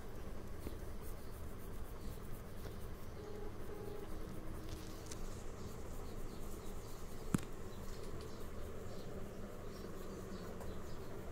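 Graphite pencil strokes scratching lightly on drawing paper, over a steady background hum, with a single sharp click about seven seconds in.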